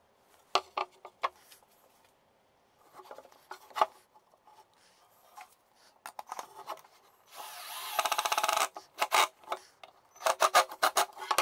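Knocks of wooden pieces on a workbench, then a cordless drill driving screws into wood in short bursts, ending in a run of rapid sharp clicks.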